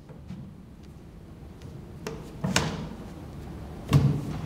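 Knocks and thuds from a black flat-pack cabinet as its panels are pressed and the cabinet is handled: a couple of sharp knocks about two seconds in, then a heavier thud near the end.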